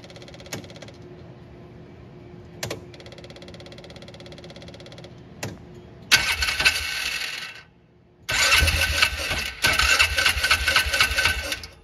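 Polaris Ranger 500's engine cranked over on the starter in two tries, one of about a second and a half and then a longer one of about three seconds, each stopping abruptly. The engine is being cranked with its fuel pump delivering only about 30 psi of the 58 specified, a pump too weak to keep it running.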